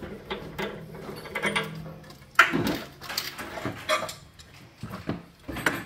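Metal pipe fittings and tools being handled, clanking and scraping as a threaded connection is made up; a sharp knock about two and a half seconds in, then a run of irregular clinks and scrapes.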